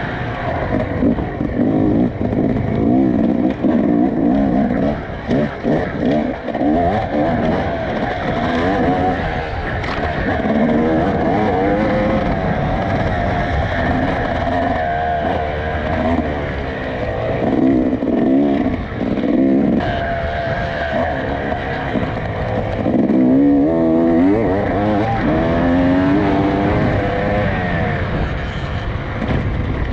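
Off-road dirt bike engine revving up and down again and again as the bike is ridden hard over rough ground, with scattered knocks.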